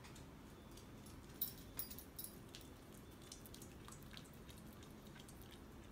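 Faint clicks and small wet sounds of a corgi licking food off a spoon, a few sharper ticks in the first half.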